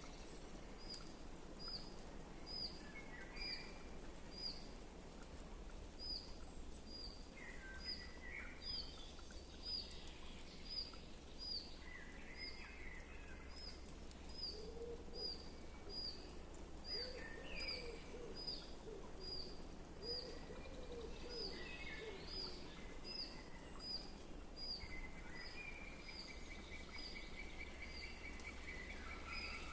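Woodland birds singing: one bird repeats a short high, downward-slurred note about once or twice a second throughout, while other birds add scattered brief phrases, and a lower warbling call comes in toward the middle.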